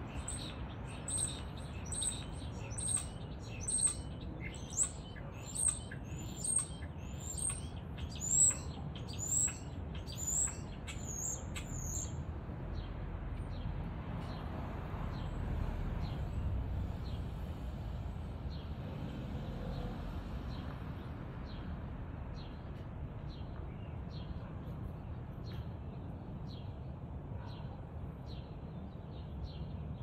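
A bird calling a series of about a dozen high, down-sweeping chirps, roughly one a second, that stop about twelve seconds in; after that only faint short ticks are heard over a steady low rumble.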